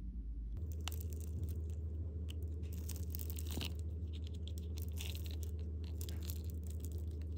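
Crackling and crunching as a red gel shell studded with gold sequins is peeled and torn open by hand, over a steady low hum.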